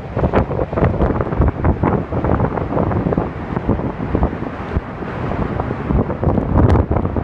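Typhoon wind blasting the microphone in irregular, unbroken gusts, with a sharp crack near the end.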